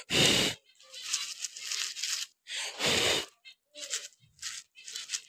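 Short puffs of breath blowing the empty husks off a plastic bird-seed dish, hitting the microphone as gusts, between softer rustling of seed in the dish. The strongest puffs come right at the start and about three seconds in.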